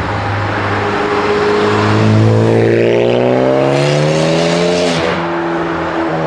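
Turbocharged Ford Focus ST 2.0 EcoBoost four-cylinder with a big Garrett turbo and an external wastegate dump tube, pulling hard with the revs climbing. Near the end the revs drop sharply as the car shifts up, then it pulls again. A rising hiss builds up just before the shift.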